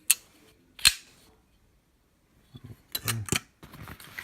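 Folding pocket knife being flicked open and shut: two sharp snaps about a second apart, then a quick run of clicks and a knock about three seconds in, followed by handling rustle.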